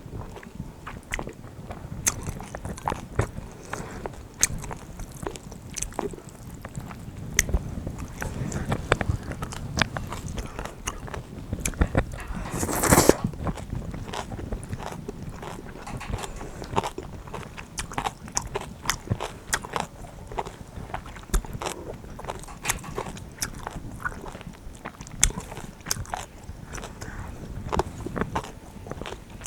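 Close-up eating sounds: a person chewing and crunching through bibim-guksu noodles and crisp kimchi, with many small clicks and mouth noises. There is one louder half-second burst of noise about thirteen seconds in.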